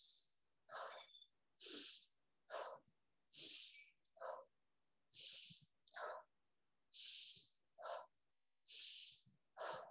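A woman breathing rhythmically, in through the nose and out through the open mouth, about one breath every two seconds. Each exhale is a soft hiss. The breaths are faint.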